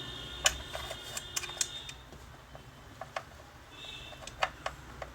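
Irregular sharp clicks and taps of metal tools and parts being handled while a sewing machine is taken apart with Allen keys. A faint steady high tone fades out about two seconds in.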